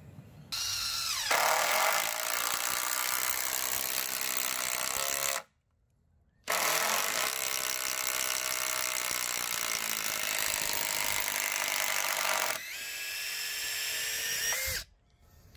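Cordless impact driver hammering as it drives a fastener through to the other side, starting with a rising whine as it speeds up. It stops for about a second around five seconds in, runs again, and drops in level a couple of seconds before it stops near the end.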